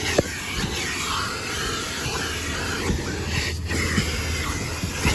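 Car wash vacuum running, its hose drawing air with a steady rushing sound over a low hum, with a few light knocks as the nozzle moves over the fabric seat.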